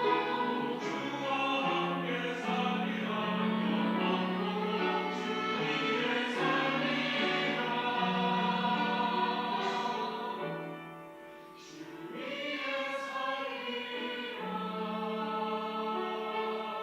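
Church choir singing an anthem in held, sustained chords. About two-thirds of the way through the sound drops away briefly between phrases, then the voices come back in.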